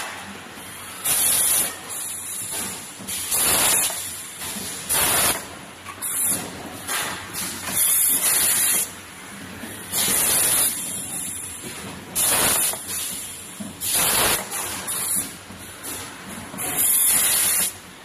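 Automatic pouch filling machine running, its pneumatic cylinders venting compressed air in short hissing bursts every second or two over a steady mechanical background.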